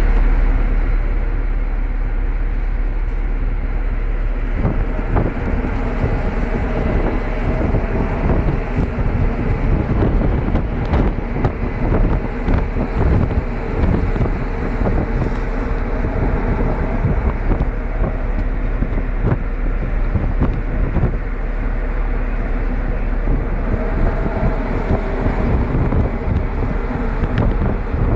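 Wind buffeting the microphone on the deck of a cargo ship under way, over the steady running of the ship's engine and the rush of the bow wave along the hull.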